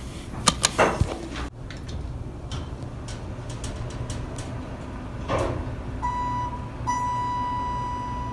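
An elevator call button is pressed with a few sharp clicks over a low hum. From about six seconds in a steady electronic beep tone sounds, once briefly and then held for more than a second.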